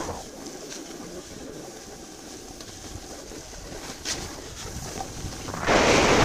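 Wind rushing over the microphone and the scrape of sliding over packed snow during a downhill run, faint at first and much louder from about five and a half seconds in as speed picks up.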